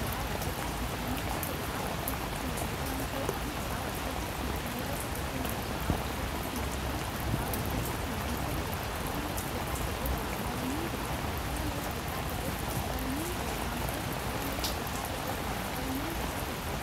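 Steady rain with a fine patter of droplets, recorded as the masking track of a subliminal.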